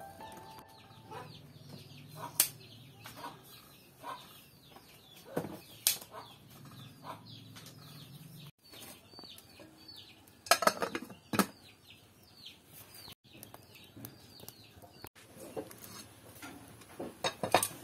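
Chickens making many short, falling peeps and clucks throughout. Over them come a few sharp knocks and clatters of corn cobs dropped into a metal cooking pot, the loudest cluster about halfway through.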